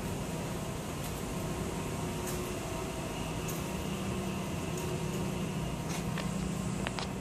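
Steady machinery hum with a low drone and a few faint clicks and taps. The chiller's compressors are not running: it is locked out on an E6 phase-reversal code.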